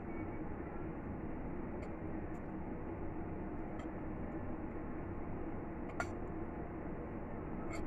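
Fork and spoon clinking against a ceramic bowl while eating: a few faint ticks and two sharper ringing clinks, the clearest about six seconds in and another near the end, over steady room noise.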